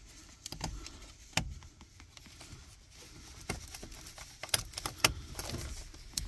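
Plastic ignition-harness connector being worked loose and unplugged by hand: scattered sharp plastic clicks and rattles, several in quick succession about four and a half to five seconds in.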